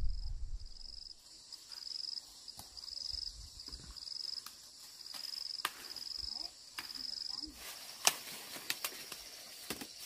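An insect calling in a steady, high-pitched pulsing chirp, about one and a half pulses a second. Near the end this gives way to rustling of dry corn plants and a few sharp snaps as ears are picked.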